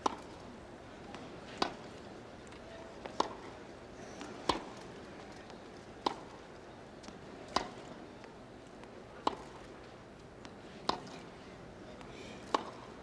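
Tennis ball struck back and forth by rackets in a baseline rally: a sharp pock about every one and a half seconds, nine hits in all, over a faint steady background hiss.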